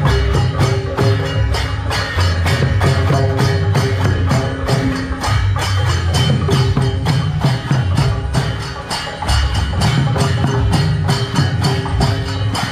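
Folk percussion band playing on the march: large rope-strung barrel drums and brass hand cymbals beating a fast, even rhythm.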